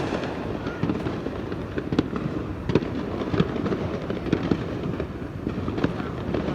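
Firecrackers popping at irregular intervals, many of them distant, with a few sharper, louder cracks in the middle, over a steady background din of more explosions.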